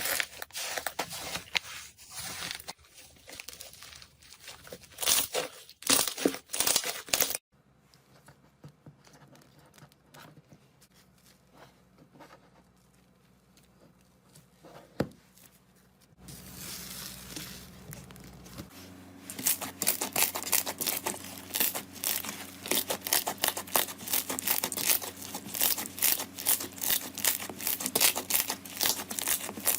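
Slime being squeezed and pressed by hand, giving dense crackling clicks. The crackling breaks off about seven seconds in, stays faint for a while, and returns fast and steady for the last ten seconds.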